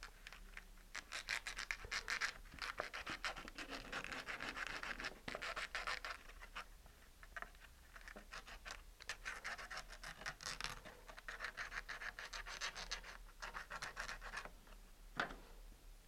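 Folded 220-grit garnet sandpaper rubbing back and forth inside a small notch in a laser-cut plywood rotor hub, in runs of rapid scratchy strokes. The sanding opens up a notch that is too tight for the blade support to slip into. A single sharper tap comes near the end.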